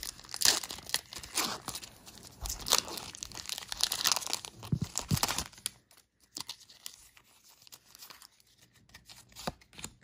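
The foil wrapper of a Pokémon trading card booster pack being torn open and crinkled in the hands, in a run of crackling tears. It goes much quieter about six seconds in, leaving only light handling of the cards.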